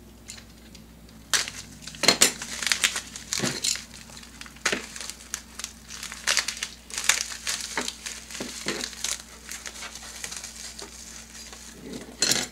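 White paper wrapping crinkling and rustling as a small item is unwrapped by hand, in irregular sharp crackles, loudest about two seconds in and again around seven seconds in.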